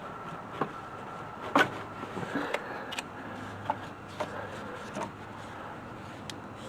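Scattered clicks and knocks of hand tools and loosened parts being handled in a car's engine bay, the loudest about a second and a half in.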